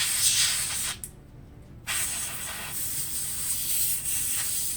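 Can of compressed air (air duster) spraying in two hissing bursts: a short one of about a second, then a longer one of about three seconds.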